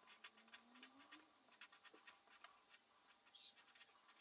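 Pen scratching faintly on paper in short, quick, irregular strokes, several a second, as spiky fur lines are inked.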